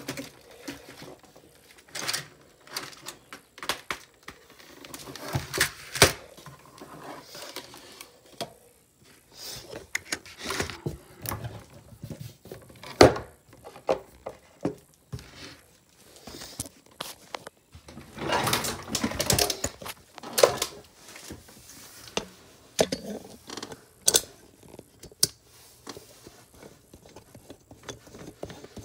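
Things being handled and set down on a desk: scattered clicks, knocks and clunks, with a stretch of rustling a little past the middle.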